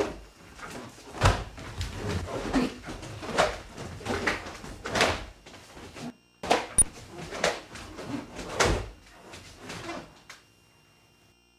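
A karate kata performed barefoot on a wooden floor: sharp snaps of the cotton gi with each block and punch, with thumps and slides of the feet, about one a second, dying away near the end.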